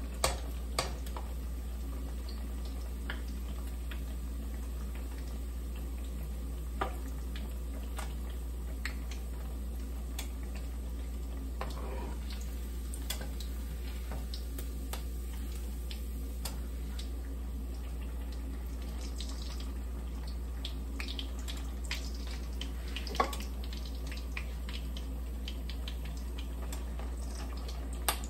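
Milkfish frying in hot oil in a wok: a steady sizzle with scattered small crackles and pops, and a few sharper clicks of a metal spatula against the pan.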